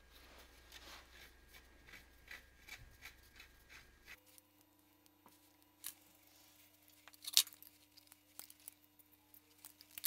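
Faint metallic clicking and scraping of hand-tool work on an adjustable threading die: the die is set with a screwdriver and an original wagon end rod is screwed through it to match the old thread. A run of regular ticks, about three a second, fills the first four seconds, then scattered clicks follow with a sharper cluster past the middle.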